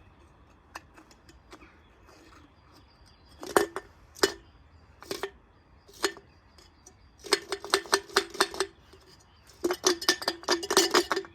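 A stone knocking and rattling against the metal inside a small washing machine. First a few separate sharp knocks, then two runs of rapid clinking with a ringing note.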